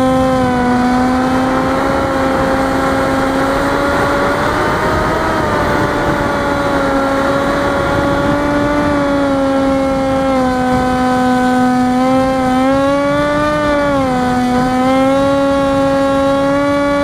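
Brushless electric motor and 6-inch propeller of an FPV flying wing whining steadily in flight, the pitch dipping and rising slightly with throttle, over a rush of wind noise.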